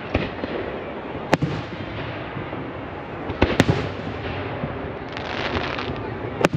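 Aerial firework shells bursting: a sharp bang about a second in, two close together at about three and a half seconds, and another near the end, over a continuous noisy background.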